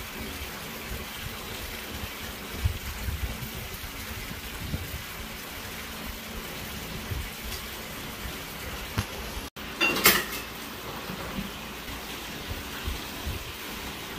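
Light rustling and handling of bamboo-leaf-wrapped rice dumplings and their tying string, with small knocks over a steady hiss. The sound drops out briefly just before ten seconds in, followed by a short, louder burst.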